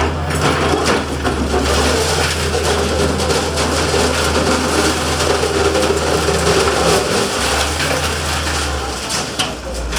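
Heavy demolition machine tearing down a house: its diesel engine drones steadily while masonry and wood crunch and crack and debris falls.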